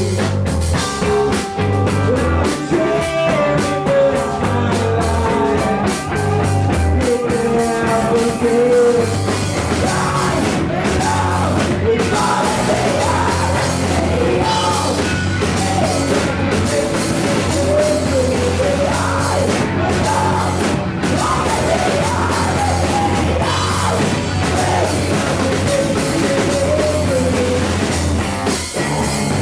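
Grunge rock band playing live: loud distorted guitars, bass and drum kit, with a wavering sung melody line over a heavy low drone.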